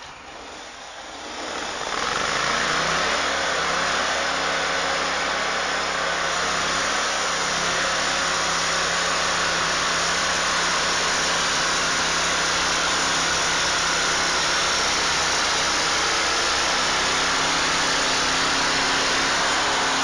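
Engine of a homemade band sawmill running steadily, rising to a louder, even running about two seconds in and holding there.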